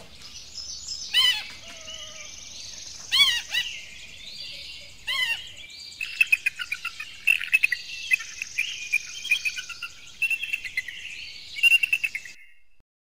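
Eagle calling: three loud, sharp, slurred calls about two seconds apart, then a long run of rapid, high chattering notes, over a steady high hiss. It cuts off suddenly about twelve seconds in.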